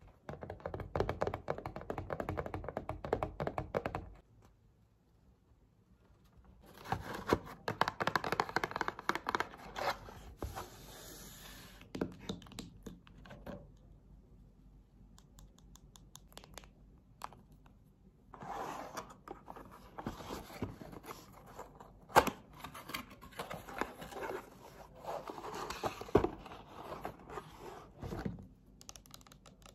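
Hands handling a sheet of drawing paper, then a cardboard box of gouache paint jars: bursts of rustling and scraping of paper and cardboard, with a few sharp knocks in the second half.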